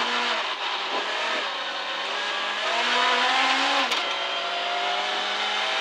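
Onboard sound of a Citroën C2 R2 Max rally car's four-cylinder engine under power on a snow stage, with tyre and road hiss. The revs climb, and about four seconds in there is a click and the pitch drops as it shifts up from second gear. The engine then pulls on at a steady note.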